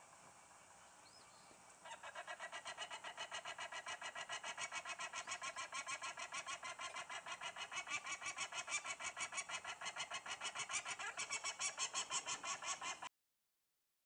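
Peregrine falcon giving its rapid, harsh 'kak-kak-kak' cacking call, the species' alarm call, about six notes a second. It starts about two seconds in, grows a little louder, and breaks off abruptly near the end.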